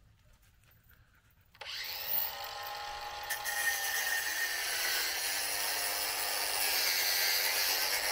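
Cordless angle grinder cutting through a steel swing chain, throwing sparks. It starts abruptly about a second and a half in and runs steadily, a grinding noise with a whine.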